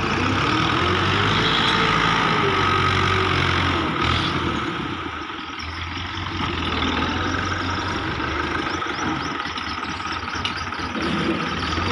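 Fiat farm tractor's diesel engine idling steadily, a little quieter for a few seconds around the middle.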